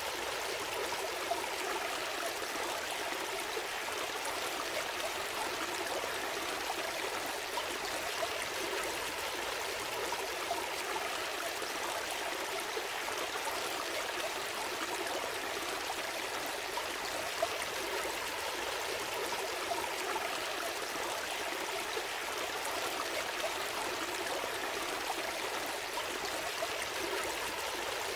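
Gentle stream flowing steadily, water trickling and gurgling over stones.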